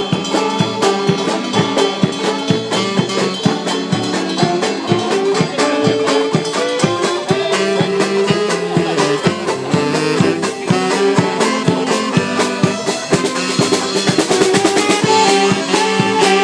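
Mummers string band playing live, with saxophones and a string bass carrying the tune over a steady drum beat.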